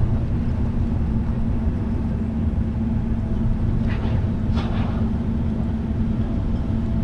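Steady low drone of a Great Lakes freighter's diesel engines, with a constant low hum running under it.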